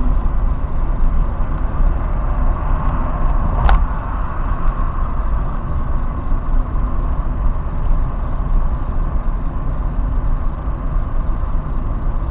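Steady road and engine noise of a car driving at expressway speed, heard from inside the cabin through a dashcam microphone. A single sharp click about four seconds in.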